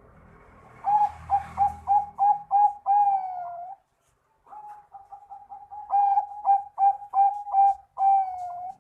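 Zebra dove (Bangkok-type perkutut) singing twice, each phrase a quick run of short coos ending in a longer drawn-out note.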